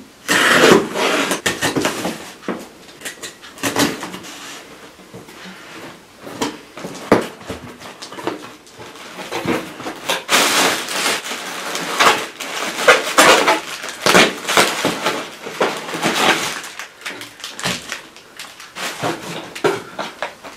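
A cardboard parcel being unpacked by hand: box flaps and tape scraping and tearing, and plastic air-cushion packing pillows crinkling as they are lifted out. The rustling comes in irregular bursts, busiest in the second half.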